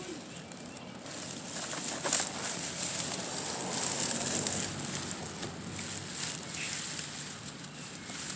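Tall grass rustling and crackling as it is pushed aside, growing louder about a second in.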